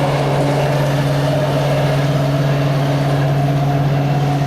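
BART rapid-transit train running in the underground station: a loud, steady electric hum with a couple of constant higher tones above it.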